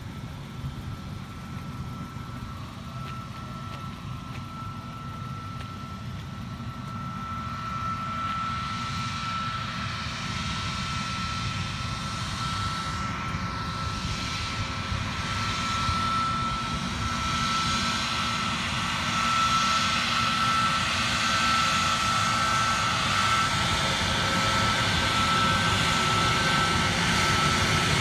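Jet engines of an ANA twin-engine airliner running at low taxi power: a steady high-pitched whine over a low rumble and hiss, growing gradually louder as the aircraft comes closer.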